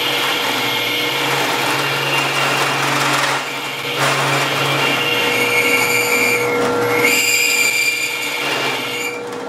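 Drill press running and spinning a cast fiberglass-resin piston while a nail held against it scrapes an O-ring groove, cutting with a little chatter. The sound is sped up three times.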